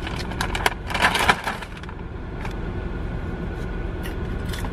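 A plastic snack bag crinkling as a hand rummages in it for salt and vinegar snacks: a dense burst of crackling in the first second and a half, then only a few scattered crackles.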